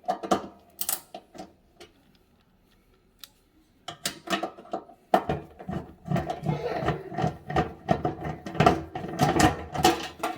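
A few clicks, then from about four seconds in a dense, rapid rattling and knocking of the dishwasher's metal and plastic front panel as it is worked loose at the bottom screws.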